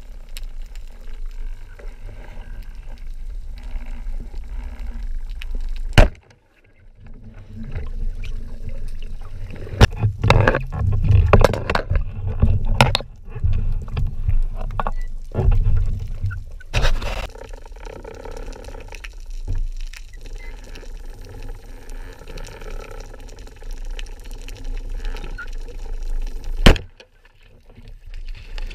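Water sloshing and churning around a camera at sea, in uneven surges. Two sharp clicks sound, one about six seconds in and one near the end, each followed by a sudden brief drop in sound.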